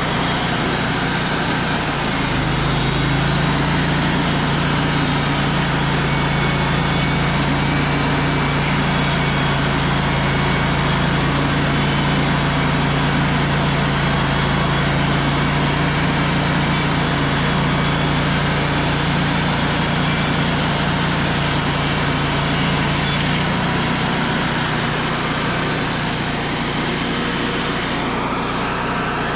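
Wood-Mizer LT35 band sawmill running steadily, its band blade cutting along a log, with a strong low hum that sets in about two seconds in and drops away a few seconds before the end.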